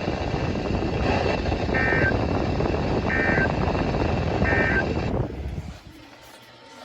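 Weather radio receiver playing the EAS end-of-message code over static: three short warbling data bursts, about 1.4 s apart. The static cuts off about five and a half seconds in.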